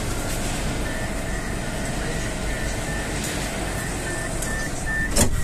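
Moskva 2.0 metro train's door-closing warning: a series of short high beeps, about three a second, over the car's steady hum, ending about five seconds in as the doors shut with a loud knock.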